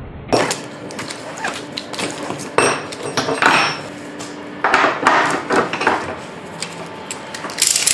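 A ratchet strap being handled on a trailer's load floor: its metal hook and ratchet clank and knock against the aluminium side rail, and the webbing swishes twice as it is pulled through.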